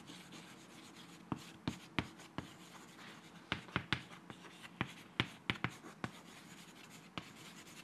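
Chalk writing on a chalkboard: a quick, irregular string of sharp chalk taps and short scratches as words are written out.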